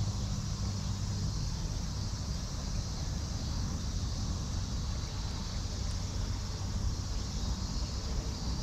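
Steady chorus of insects chirping, over a low rumble of wind or distant traffic; a low hum fades out about a second in.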